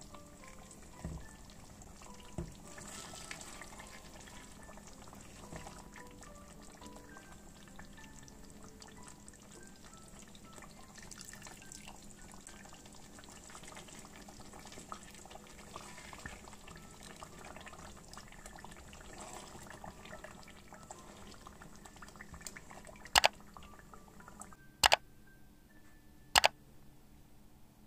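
Thick fesenjoon stew of lamb and ground walnuts bubbling as it simmers in a pan and is stirred, at the stage where the walnuts release their oil and the stew is ready, under soft background music. Near the end come three sharp mouse-click sound effects.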